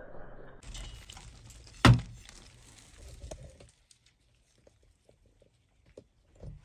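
A single sharp thunk about two seconds in, over faint rustling, then a few faint clicks in near quiet.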